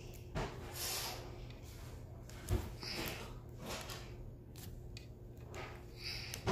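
Small handling sounds of diamond painting: soft taps and clicks as a drill pen picks up resin drills and presses them onto the canvas, with a dull thump about two and a half seconds in. A faint steady hum runs underneath.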